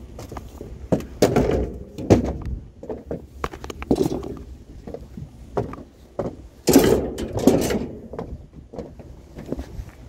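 A string of sharp knocks and clunks from hard objects being handled and set down, with a louder rattling clatter about seven seconds in.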